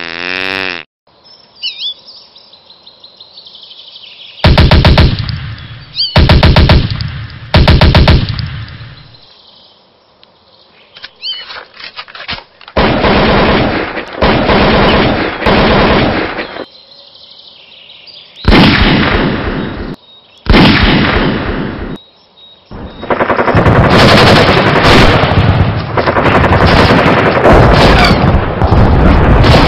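Automatic gunfire as a sound effect: three short bursts, then longer volleys, and an unbroken stretch of rapid fire near the end.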